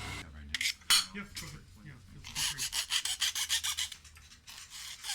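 Quick back-and-forth rasping strokes of a hand tool worked on a small part, about seven a second for over a second midway, amid scattered clicks and knocks of parts being handled.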